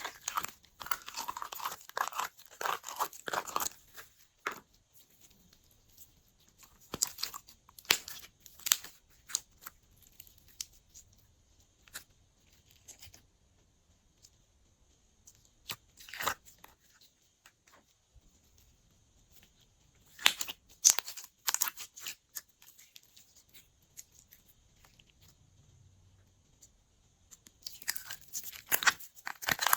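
Glossy slime being pressed and kneaded by hand, giving bursts of crackling clicks and pops separated by quiet pauses.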